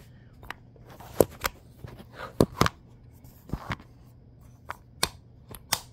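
Sharp metal clicks and knocks from a BDH H1SQ sequential shifter being worked by hand: about a dozen at uneven spacing, the loudest about a second in. The click is the one that engages the shifter's sequential or H-pattern mode.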